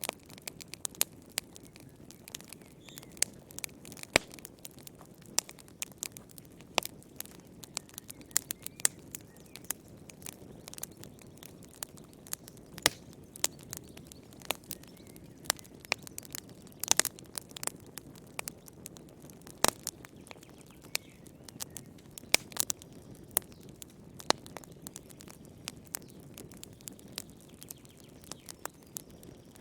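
Fireplace fire crackling: frequent sharp, irregular pops and snaps over a soft, steady low rush of burning.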